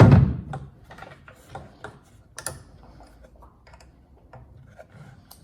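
A heavy thud as the track saw is set down, then scattered light mechanical clicks and taps as it is handled, with one sharper click about two and a half seconds in.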